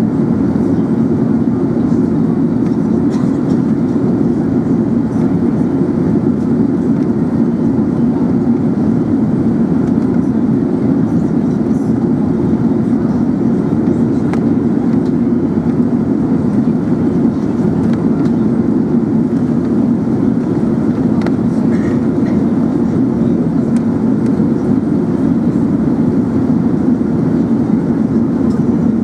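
Steady, loud cabin drone of an Emirates Airbus A380: engine and airflow noise heard from inside the passenger cabin.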